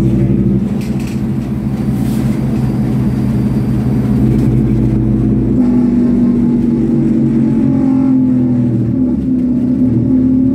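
Scania OmniCity double-decker bus's diesel engine and drivetrain running, heard from inside the passenger saloon as a steady low hum. About halfway through, the engine note shifts and a slightly higher tone grows stronger.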